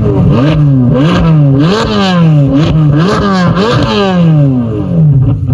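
Car engine revved again and again with quick throttle blips, the note climbing in pitch and sliding back down each time.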